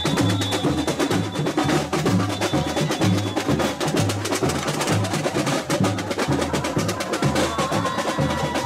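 Samba bateria playing: surdo bass drums beat a steady pulse about twice a second under a dense, fast rattle of snare and small hand percussion.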